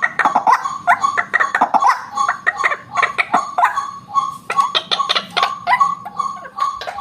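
White-breasted waterhen (ruak-ruak) calling: a fast, unbroken run of short, harsh notes, several a second, close and loud.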